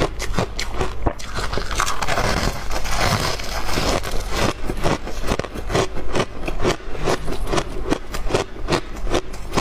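Ice being bitten and chewed, crunching close to the microphone: a rapid run of crisp cracks, about three a second, with a denser stretch of crackling grinding about two seconds in.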